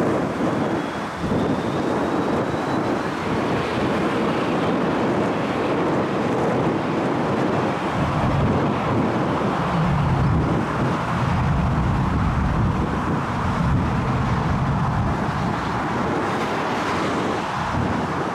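Strong wind buffeting the microphone, with the low rumble of a jet airliner's engines swelling about eight seconds in and holding for several seconds.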